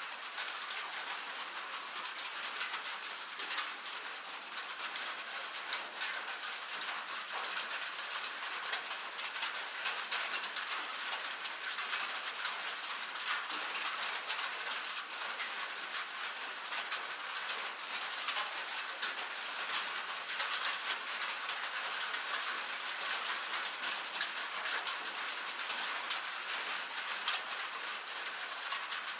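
Rain pattering steadily on a metal roof: a dense, even hiss of countless tiny drop ticks, bright and thin with no low rumble.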